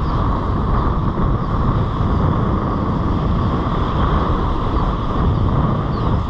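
Ocean surf breaking and washing up a sandy beach, a steady rushing noise, with wind buffeting the microphone and adding a low rumble.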